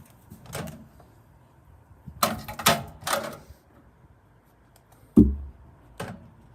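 Handling noises: a scatter of sharp clicks and knocks, a quick rattle of several near the middle, then a heavy thud a little after five seconds and a lighter knock just after.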